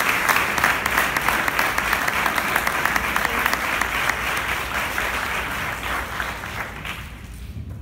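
Audience applauding, a dense clatter of many hands clapping that thins out and fades over the last couple of seconds.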